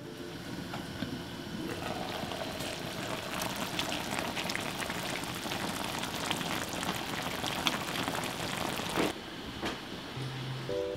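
Braised aged-kimchi and pork-rib stew simmering in a pan, a dense bubbling and crackling hiss that cuts off suddenly about nine seconds in.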